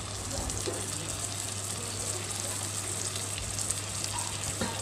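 Ginger-garlic spice paste and fried onions sizzling steadily in hot mustard oil in an aluminium kadai, the masala being fried until the oil separates. A low steady hum runs underneath, and there are a couple of light knocks near the end.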